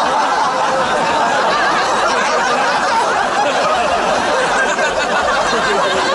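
A large crowd laughing together, many voices overlapping in a loud, unbroken din of giggles and guffaws during a group laughter exercise.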